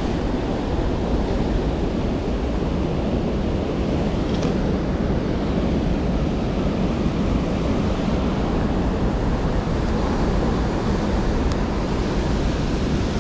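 Heavy surf from a large 6–8 ft swell breaking and washing over a boulder shoreline, a steady, even noise with wind rumbling on the microphone.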